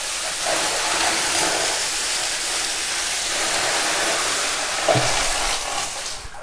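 Water pouring out of a plastic drum's mouth and splashing onto the floor in a steady rush. There is a light knock about five seconds in, and the flow tapers off near the end.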